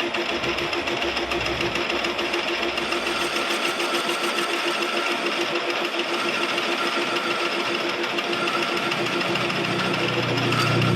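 Lathe running steadily with a fast, even mechanical pulse, turning a chess pawn; a lower hum comes in near the end.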